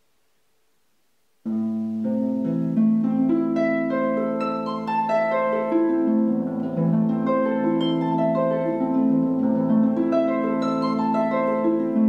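Solo concert harp: after about a second and a half of near silence, plucked notes and chords start suddenly and keep going, the strings ringing on under one another.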